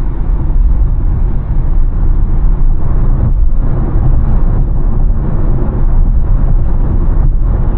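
Steady road and tyre rumble heard inside a Tesla Model Y's cabin at freeway speed.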